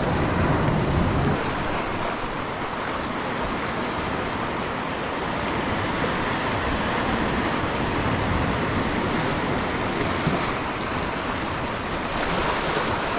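Sea surf washing in over and around shoreline rocks: a steady, unbroken rushing wash.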